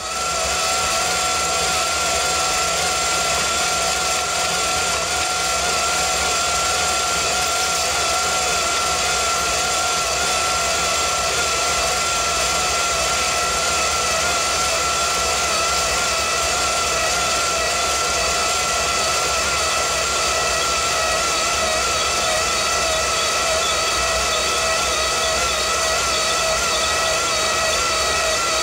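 Bright Tech Developments power roller display's 24-volt motors winding a bus number blind back to its blank start: a steady electric motor whine with a slight waver in pitch.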